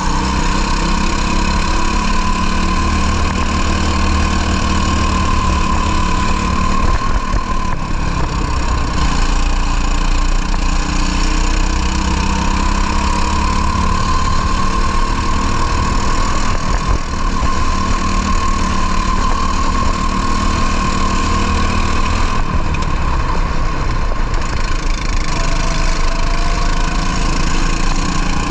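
Racing kart's two-stroke engine at racing speed, heard onboard, its high note rising and falling as the driver accelerates out of corners and lifts into them, with wind noise on the microphone.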